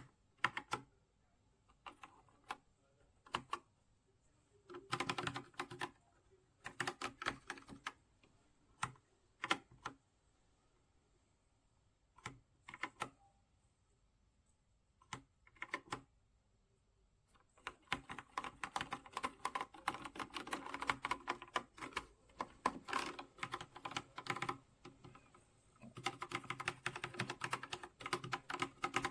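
Typing on a Redragon K689 mechanical keyboard with linear switches. At first come scattered single keystrokes and short bursts; then, about seventeen seconds in, fast continuous typing sets in, broken by a brief pause near the end.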